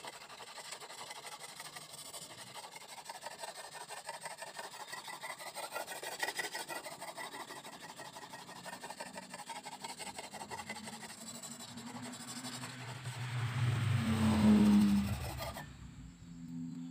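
Fine whetstone scraped back and forth in rapid strokes along the curved steel blade of an egrek, an oil-palm harvesting sickle, honing the edge: a fast, even rasping that stops about a second before the end. A louder low-pitched sound swells and fades shortly before the scraping stops.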